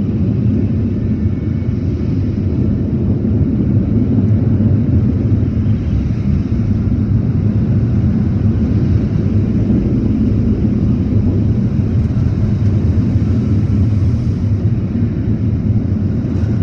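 Automatic car wash machinery heard from inside the car's cabin: a loud, steady low rumble that holds level throughout.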